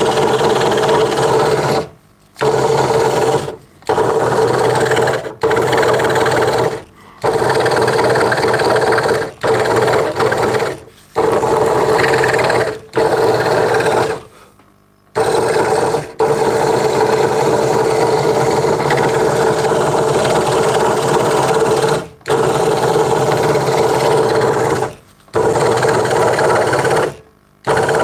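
Craftsman 22-inch scroll saw, fitted with a replacement motor, running and cutting through a thin wooden board: a steady motor-and-blade hum with a strong held tone, broken by about a dozen short dips in level.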